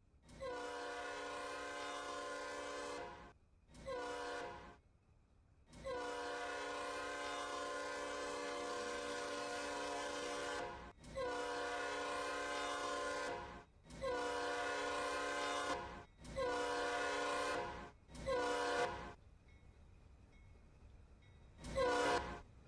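Diesel locomotive air horn of NS 4109, leading a coal train, sounding a series of blasts, several long ones of two to five seconds and a few short ones, each note dipping slightly in pitch as it starts. After a short pause near the end comes one final short blast.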